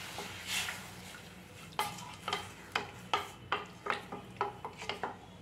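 Spatula stirring moong dal and water in an aluminium pressure cooker. A soft swish comes first, then from about two seconds in a run of quick sharp scrapes and knocks against the pot, two or three a second.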